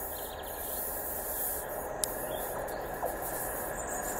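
Class 47 diesel locomotives approaching in the distance: a steady hiss and rumble that grows slightly louder, with a single sharp click about two seconds in.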